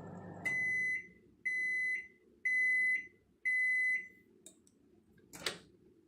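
Microwave oven finishing its timed heating cycle: its running hum cuts off, then it gives four high beeps about a second apart to signal the cycle is done. A single sharp click follows near the end.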